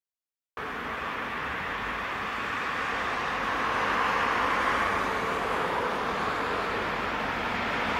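Steady hiss of outdoor traffic and rail noise as a tram approaches along its track, cutting in abruptly just under a second in after silence and swelling slightly midway.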